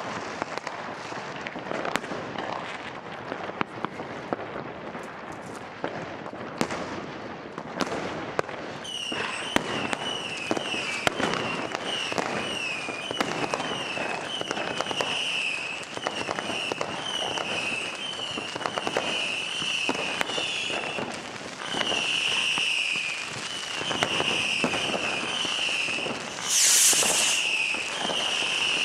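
Fireworks and firecrackers going off all around: an irregular, dense crackle of sharp bangs and pops. From about a third of the way in, a repeating warbling tone sounds over them, and near the end a loud hiss lasts under a second.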